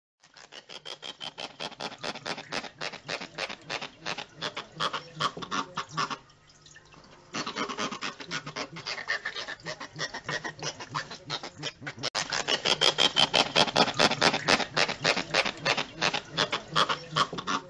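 Striped Raphael catfish (Platydoras costatus) croaking: a rapid run of pulses, several a second, made by grinding its pectoral fin spines, the sound a doradid catfish makes when handled out of water. It pauses briefly about six seconds in and gets louder from about twelve seconds.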